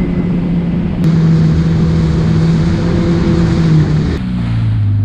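Yamaha WaveRunner personal watercraft running under way, its engine holding a steady tone over the rush of water and spray. About four seconds in the engine tone drops to a lower pitch.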